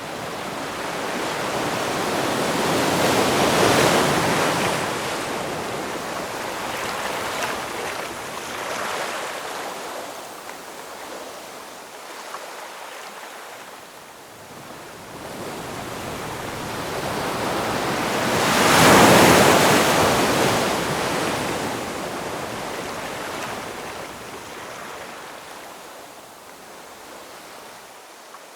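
Ocean waves breaking on a shore: two waves build, crash about 4 and 19 seconds in, and wash back out with a long hiss between them.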